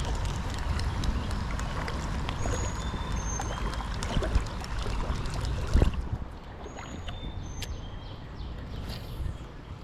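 Steady rain, with many small drops ticking close by; the rain noise eases off about six seconds in. A short, high two-note chirp repeats every few seconds.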